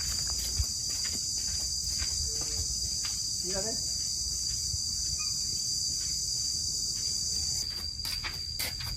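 Insects droning steadily at a high pitch, the drone thinning a little near the end. A short rising voice-like call sounds about three and a half seconds in, and a few light taps come at the very end.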